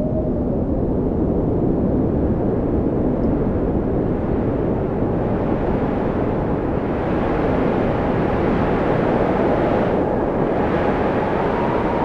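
Storm wind blowing hard in gusts, rumbling heavily on the microphone. A faint whistle rises and falls through it, and the gust strengthens about halfway through.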